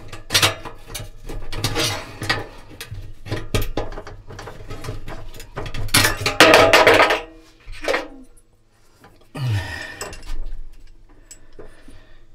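Metal clinking and scraping inside the Fisher & Paykel dryer's stainless steel drum as a part is worked loose from the drum's rear bearing hub, with a louder stretch of scraping lasting about a second around six seconds in. The part is stuck fast because it has worn.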